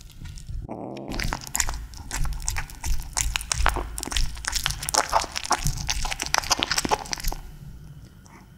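Kitten chewing a chunk of raw tuna, close-miked: a fast, dense run of chewing clicks and smacks that starts about a second in and stops about seven and a half seconds in.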